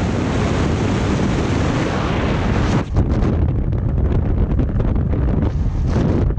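Wind rushing and buffeting over the camera's microphone in flight under an open ram-air parachute canopy. The full hiss and rumble thins out a little after a brief dip about three seconds in, leaving mainly low buffeting.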